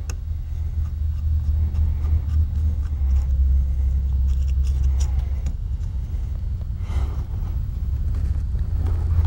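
A steady low rumble throughout, with a few light metal clicks and scrapes as a flat drift is worked against the trigger plate pin in a sidelock shotgun's action.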